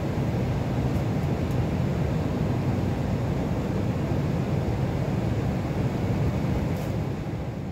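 Steady cabin noise of a commercial airliner in flight: engines and airflow heard from inside the cabin, beginning to fade out near the end.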